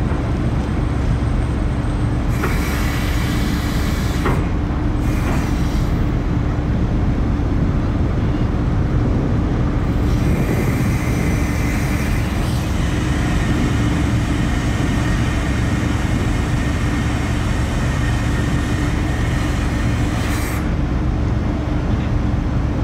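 Steady low rumble and hum of the car ferry Calanthe Okushiri's engines heard on board, with a hiss of wind and water above it that fades in and out several times.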